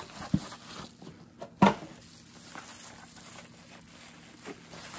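A cardboard box and its packing being opened by hand: rustling and tearing, with a sharp knock a third of a second in and a louder one about one and a half seconds in.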